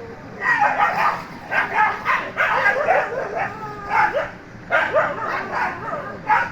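Dogs barking and yelping in quick, irregular bursts, some calls with short whining glides in pitch, as in a dog fight.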